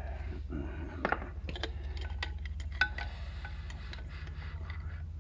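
Light metal clinks and taps from a hand tool working at a tight-fitting tractor rear axle seal, a few separate strikes, over a steady low hum.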